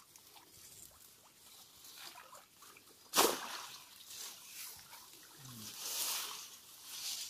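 Water sloshing and plants rustling as a person wades through a blackwater stream and pushes vegetation into it, with one sudden loud splash about three seconds in.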